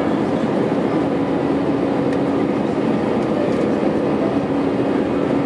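Steady cabin noise inside an Airbus A320 climbing out after takeoff: the jet engines and rushing air, with a constant low hum.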